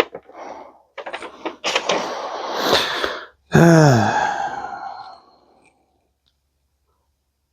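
Metal parts of an old microwave being handled and pulled apart, rattling and scraping, then a loud clang about halfway through. The clang carries a wavering, falling ring that dies away over about two seconds, like a sheet-metal panel flexing.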